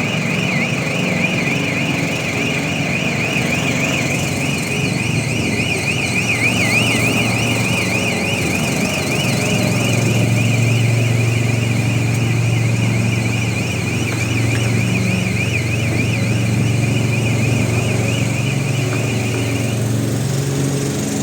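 Car alarm sounding a fast, repeated warble that stops near the end. Under it runs the steady drone of small engine generators, running during a power outage.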